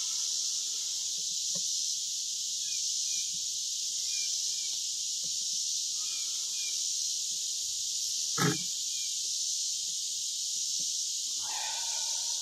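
Steady, high-pitched insect chorus, with a single knock about eight and a half seconds in.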